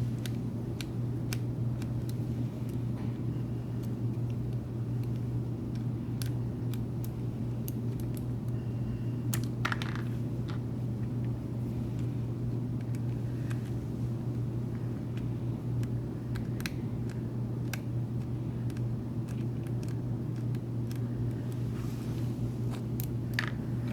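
Scattered light clicks and taps of small metal and plastic parts as Andis Ultra Edge clippers are taken apart, over a steady low hum.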